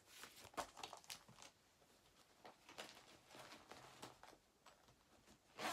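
Faint rustling and crinkling of a cross-stitch piece and its project bag being handled, in scattered short bursts with a few light clicks.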